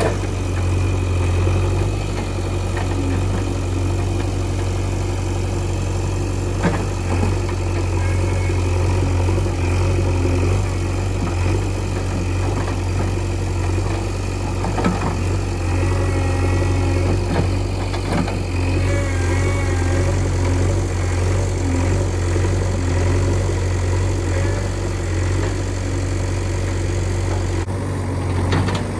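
Diesel engine of a JCB 3DX backhoe loader running steadily, with a couple of brief sharp knocks.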